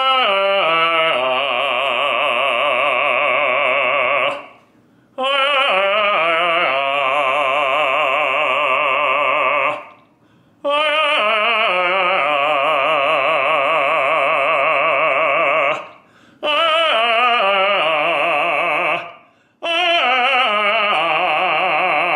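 Operatic baritone singing vocal warm-up exercises: five phrases, each stepping quickly down a scale and then holding a low note with wide vibrato, with short breaths between them.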